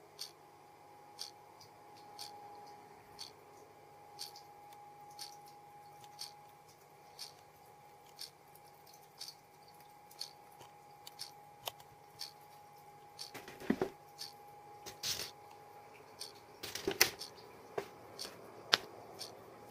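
Sharp ticks at an even pace of about one a second over a faint steady hum. In the second half come several louder rustling flicks of paper as book pages are riffled.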